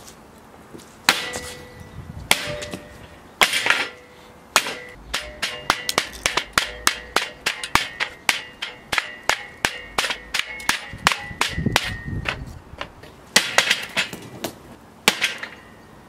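A hatchet with a bike-chain handle chopping repeatedly into a wooden board. A few spaced strikes lead into a quick run of them, about two or three a second, before a few more spaced ones; many strikes carry a brief metallic ring.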